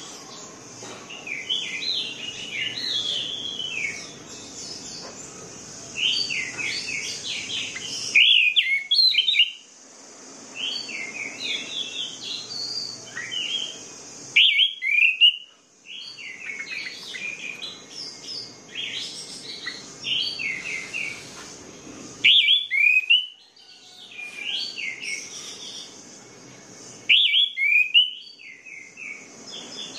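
Orange-headed thrush singing: quick runs of varied whistled and chirping notes in phrases a few seconds long, with short pauses between them, over a steady background hiss.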